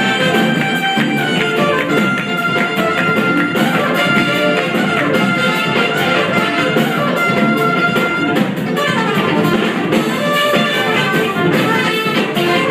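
Live jazz-fusion band playing, the horn section of trumpets and saxophone carrying the melody in held notes over electric guitars, keyboards and drums, with a falling run of notes about nine seconds in.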